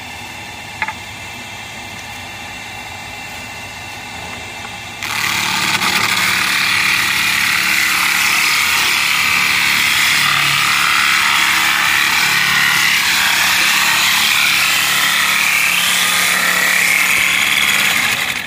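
Belt-driven wood rounding machine running with a steady whine. About five seconds in, its blade head starts cutting a square wooden stick down to a 30 mm round handle, making a much louder, rough cutting noise that stops just before the end.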